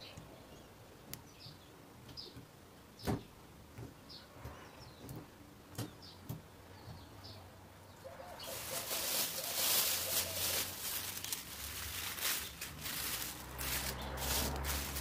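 Plastic cling film crinkling and rustling loudly as it is stretched over a glass dish, starting about halfway through. Before that, faint bird chirps and a single knock.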